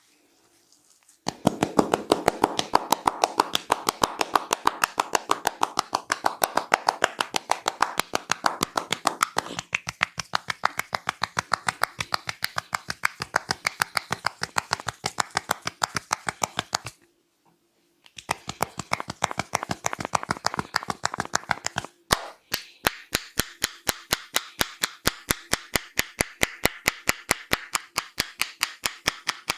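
Barber's hands striking in fast, even percussion massage strokes, about five or six slaps a second. The strokes stop for about a second midway and break briefly again a few seconds later.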